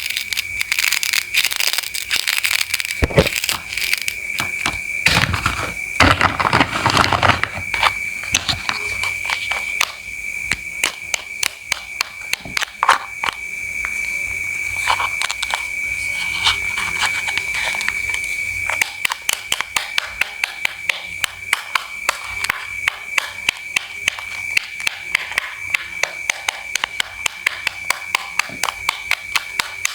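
Knife cutting fruit and vegetables on a cutting board: irregular cuts and scrapes, then quick, even chopping at about three strokes a second in the last third. A steady high tone sits under it throughout.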